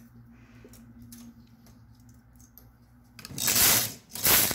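Knitting machine carriage pushed across the needle bed twice in quick succession near the end, a loud rushing clatter of the needles each way, after a few faint clicks of hand work on the needles.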